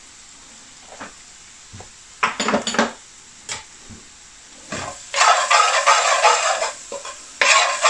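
A metal spoon stirs and scrapes spices frying in oil in an aluminium balti pan, with sizzling. A few light knocks come first, and the loud stirring starts about five seconds in, pauses briefly, then resumes.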